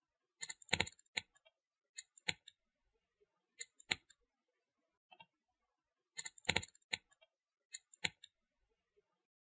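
Computer mouse clicking: about a dozen sharp, short clicks, some in quick pairs, irregularly spaced with quiet between.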